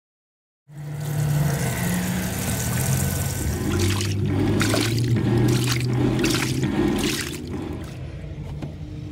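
Top-loading washing machine agitating a load of plush toys in soapy water: a motor hum that shifts in pitch as the drum changes direction, over churning, sloshing water. It starts abruptly about a second in and eases off near the end.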